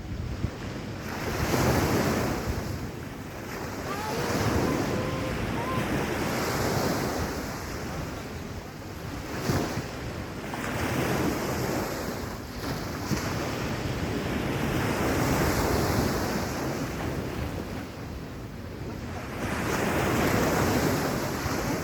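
Sea waves washing onto a sandy beach, the surf swelling and falling back every few seconds, with wind rumbling on the microphone.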